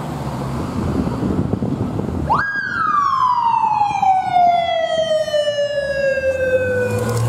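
Traffic noise, then about two seconds in a police motorcycle siren sounds a single wail: it climbs quickly and then falls slowly in pitch.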